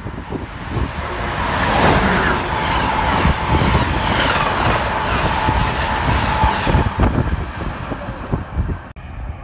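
Amtrak electric passenger train passing at speed right beside a station platform: a loud rush of wheels on rails and air that builds about a second in, with a steady high whine through most of the pass, then eases off as the cars go by. The sound breaks off abruptly near the end.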